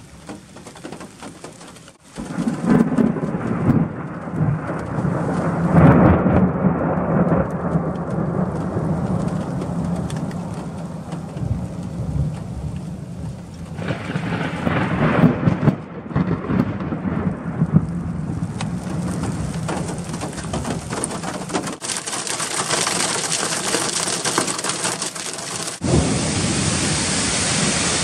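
A thunderclap about two seconds in, then long rolling thunder with further surges, over steady rain falling on the car. Near the end it gives way to a steady rush of water from a rain-fed waterfall pouring off a cliff.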